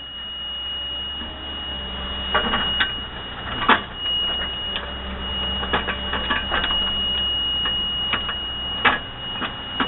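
Excavator running with a steady low engine drone and a thin high whine, while the bucket clanks and knocks irregularly against rock as it digs.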